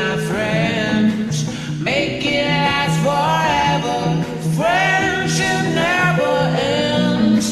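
A song: a man singing over guitar-led backing music.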